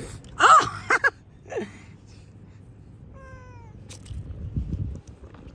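Hungry kitten meowing: a loud rising-and-falling meow, then two short quick ones and another brief meow, and about three seconds in a longer meow falling in pitch. A soft low rustle follows near the end.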